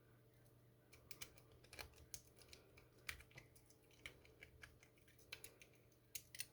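Lock pick rake working the pins of a Master Lock No. 7 padlock: a quick, irregular run of faint metallic clicks and scrapes starting about a second in.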